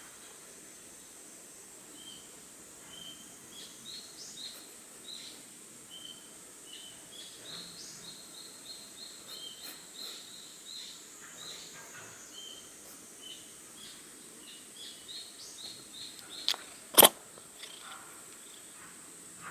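A Scottish Fold cat sneezes about two and a half seconds before the end: a small sharp burst, then half a second later a much louder, sharp sneeze. Behind it, birds chirp in short repeated notes.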